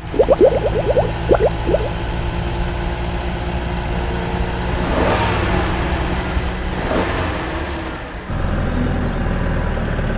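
Remote-control toy vehicle running with a steady low engine-like hum, with a few short rising whines in the first two seconds. The sound changes abruptly about eight seconds in.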